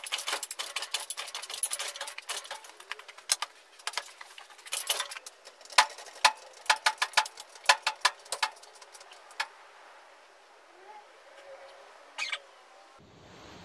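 Rapid, irregular sharp clicks and taps of hands-on mechanical work, densest for the first nine seconds or so, then thinning to a few faint sounds.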